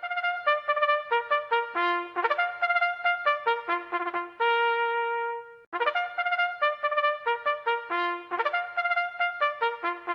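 Solo trumpet fanfare: a quick run of separate notes that ends on a long held note, then the same phrase played again.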